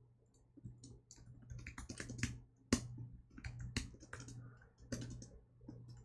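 Computer keyboard typing: irregular key clicks in quick runs and pauses, with a low steady hum underneath.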